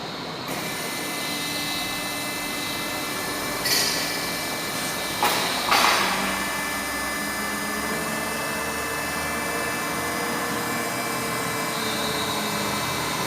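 Imet CNC double-column band saw machine running: a steady mechanical hum with several whining tones. About four to six seconds in come three short, loud bursts of noise.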